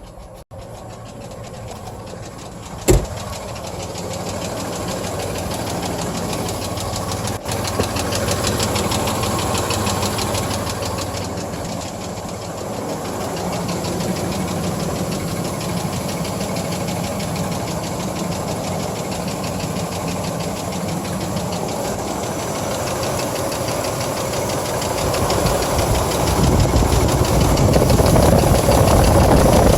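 1997 GMC Jimmy's 4.3-litre V6 running with a fast, steady ticking-knocking noise over the engine note, a noise that began after driving through a deep puddle and that the owner asks may be engine knock. A single sharp click about three seconds in, and the engine grows louder over the last few seconds.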